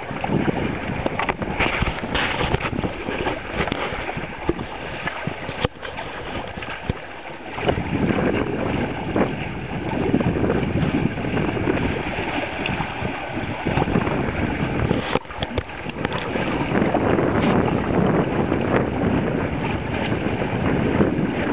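Wind buffeting the microphone over water washing and splashing along the hull of a sailing trimaran, growing a little louder about two-thirds of the way through.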